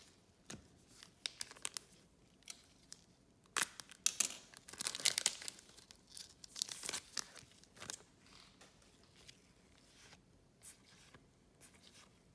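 A trading card pack wrapper being torn open and crinkled. The crackling is densest and loudest a few seconds in, among scattered sharp ticks of handling.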